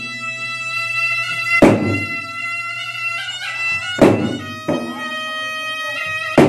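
Gendang ensemble: two large red double-headed drums beaten by hand under a small flared wind pipe that plays a steady held melody. Heavy drum strokes land about every two and a half seconds, with lighter hits between them.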